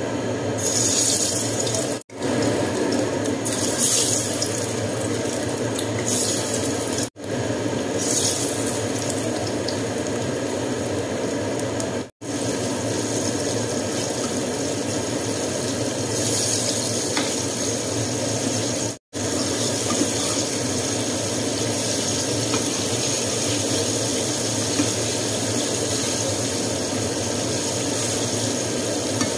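Chicken pieces sizzling steadily in hot oil in a wok, louder in spells during the first several seconds, with the sizzle cutting out briefly four times.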